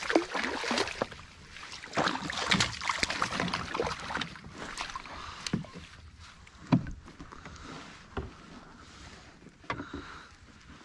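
Knocks and rustling as a fish is handled in a kayak: irregular bumps against the hull, busy for the first few seconds, then sparser single knocks.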